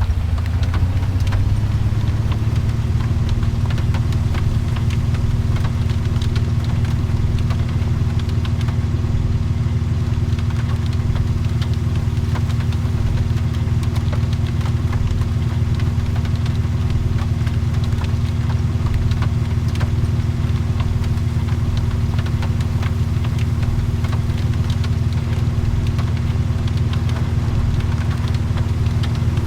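A car engine running steadily, a continuous low drone with a steady hum that settles in about a second in, and faint scattered ticks over it.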